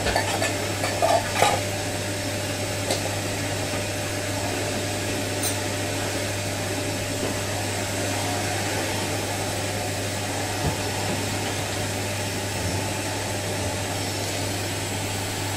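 A steady low machine hum, with a few light clatters and knocks in the first second and a half.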